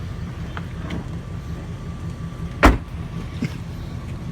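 Car engine running with a steady low rumble; about two and a half seconds in, a single loud thump as a car door is shut.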